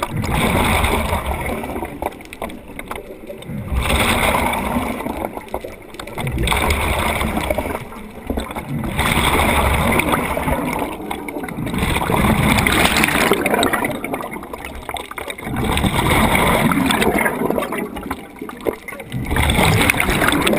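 Scuba diver breathing through a regulator underwater: a rush of exhaled bubbles about every four seconds, with quieter inhales between.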